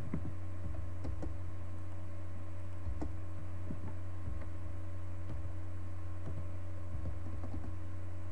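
Scattered light clicks of a computer mouse and keyboard over a steady low electrical hum.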